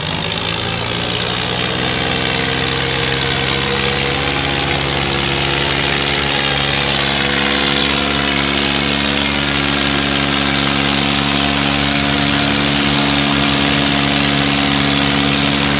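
Swaraj 855 tractor's diesel engine, with a second tractor's engine, running at full throttle under heavy load in a tractor tug of war. The pitch climbs slightly over the first few seconds, then holds steady and loud.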